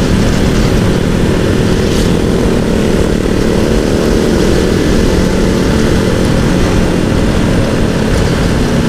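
Sport motorcycle engine running steadily at cruising speed, mixed with heavy wind rush on the rider's microphone.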